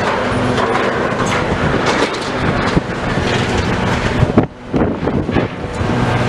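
Demolition machinery at work: a diesel engine running steadily under a continuous clatter of knocks and crunches from broken material, with a brief lull about four and a half seconds in.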